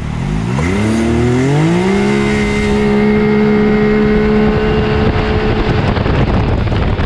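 Can-Am Maverick X3's big-turbo three-cylinder engine at full throttle on a 0–60 launch, heard from inside the cab. The revs climb fast for about two seconds, then hold at one steady pitch as the CVT keeps the engine at peak revs while speed builds. Near the end the engine note drops away as the driver lets off, leaving wind noise.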